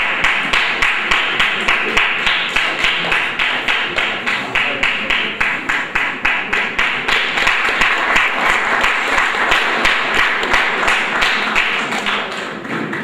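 Audience clapping together in a steady rhythm, about two to three claps a second, dying away near the end.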